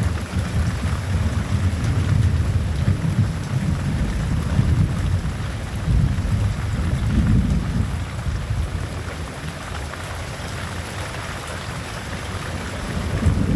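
Thunder rumbling low and long over steady heavy rain, after a lightning bolt. The rumble swells again a few seconds in, eases off past the middle, and starts to build near the end.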